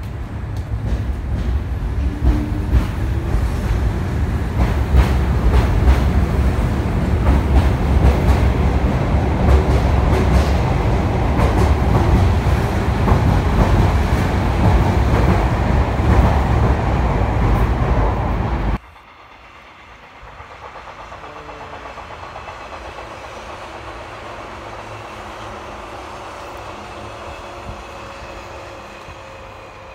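Sotetsu electric commuter train pulling out of a station, its wheels and motors running in a heavy rumble with clicking over rail joints, growing louder as it gathers speed. About 19 seconds in it cuts off abruptly to the much quieter, steady sound of a passenger train running past in the open.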